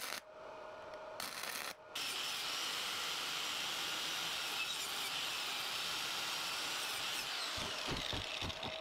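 Electric arc welding on a metal bracket: a steady, even frying hiss that starts about two seconds in, with a few low knocks near the end.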